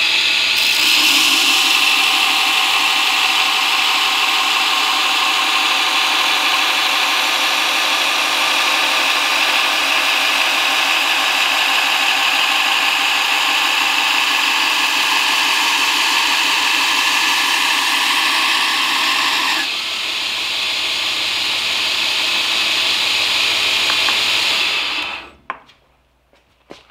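Belt grinder grinding the bevel of a steel knife blade held against the running abrasive belt: a steady, loud hiss of abrasive on steel, throwing sparks. It eases a little about 20 seconds in and cuts off near the end as the blade comes off the belt.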